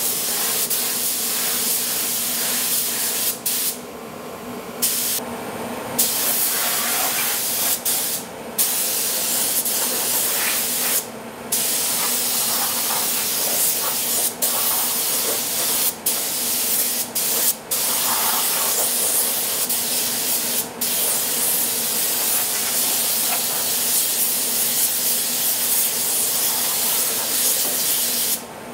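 Compressed-air paint spray gun hissing as it sprays paint. The hiss stops for moments a dozen or so times as the trigger is let off and pulled again.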